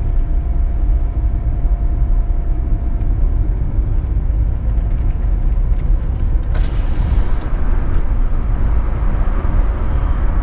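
Steady low rumble of a car driving along the road, engine and tyre noise heard from inside the car, with a brief rise of hiss about six and a half seconds in.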